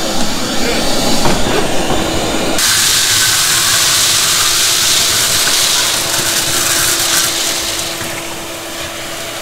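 Vacuum running while cleaning debris out of a combine's rotor compartment: a steady motor hum with air rushing through the hose. About two and a half seconds in the rush turns abruptly into a loud hiss, which eases off again near the end.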